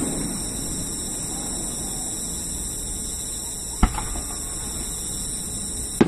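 Fireworks going off: a sharp bang about four seconds in and another at the very end, over a steady hiss.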